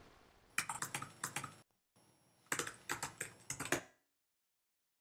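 Computer keyboard typing: two short runs of quick keystrokes, about a second apart.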